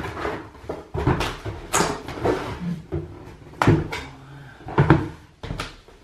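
Cardboard shipping box being unpacked by hand: its flaps flexed and scraped, and a smaller plastic-wrapped box lifted out and set down. A run of rustles, scrapes and knocks, the loudest a little before four seconds and about five seconds in.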